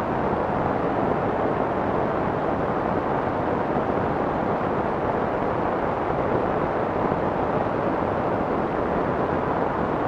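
Soft white noise: a steady, even hiss with the highs rolled off, weighted toward the middle and low range, with no separate drops or events.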